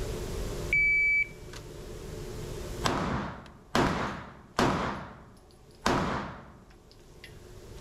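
A shot timer gives a single half-second start beep, then a pistol fires four shots about a second apart, each ringing out in the reverberant indoor range.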